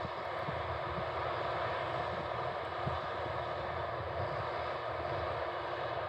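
Steady drone of potato-harvesting machinery running in the field: a tractor pulling a Double L 973 potato harvester, with a loaded ten-wheeler truck beside it.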